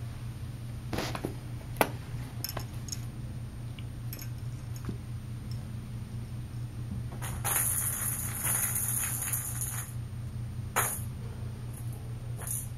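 Kittens playing with toys: scattered light metallic clinks and rattles from a pompom toy on a metal spring, with a longer scratching rustle a little past the middle.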